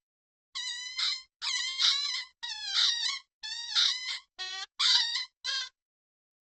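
Wooden gate creaking on its hinges as it is swung: seven drawn-out, wavering squeaks in a row, the last few shorter.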